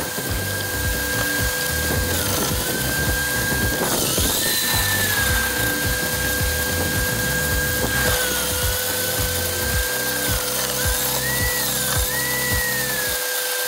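Ryobi RSH3045U 3000 W electric roller-type garden shredder running and crunching branches fed into it, with irregular crackling from the wood. Its motor whine dips in pitch several times as the cutter roller takes the load of the branches.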